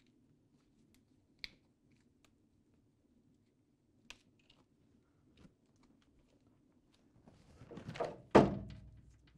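Nylon cable ties being pulled tight through a plastic retention clip on a fiber-optic cable: a few small handling clicks, then near the end a rapid rasping run of ratchet clicks lasting about a second, ending in a sharp thunk.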